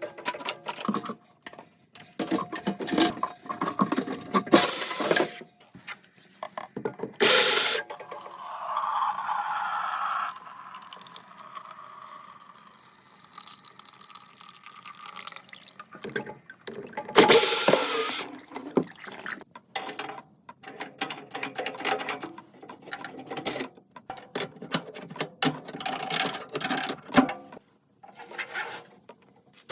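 Hands-on plumbing work on a water heater: irregular clanks, knocks and clicks of tools and fittings, with a few loud rushing bursts and a stretch of running water.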